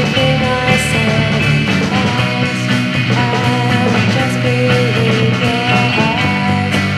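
A band's recorded song: a melody line sliding between notes over steady low chords.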